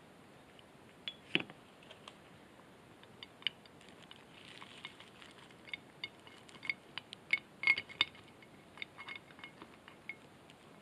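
Irregular small metallic clicks and clinks of the electric ATV winch's greased planetary gears and carrier knocking together as they are handled and fitted by hand, with a cluster of the loudest clinks about eight seconds in.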